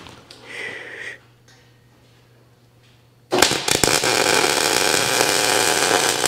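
Wire-feed (MIG) welding arc on 3/16-inch steel pipe, striking about three seconds in and then crackling steadily as the bead is run.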